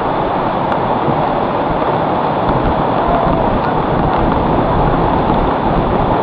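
Heavy rain pouring down in a loud, steady rush.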